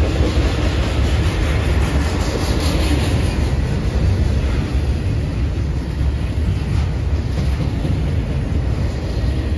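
A train rolling past, a steady rumble with no pauses or breaks.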